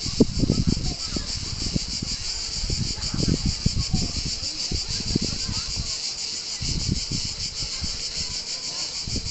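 Cicada singing: a steady, high, finely pulsing buzz, over a low, irregular rumbling.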